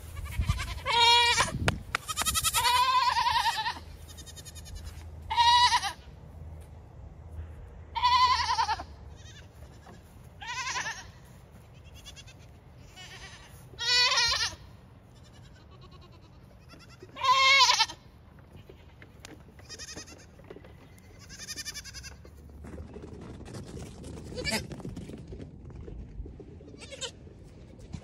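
Goat kids bleating: high, wavering calls, about one every two to three seconds, one of them long. The calls grow fainter in the last few seconds.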